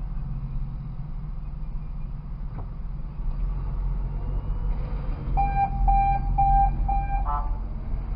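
Steady low hum of a stopped car idling, heard from inside. About five seconds in, a car horn gives four short, evenly spaced toots in quick succession, a warning to the SUV ahead as it rolls back toward the car.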